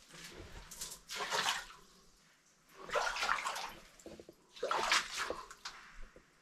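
Shallow cave water sloshing and splashing as a caver steps through it: three splashes, roughly a second and a half to two seconds apart.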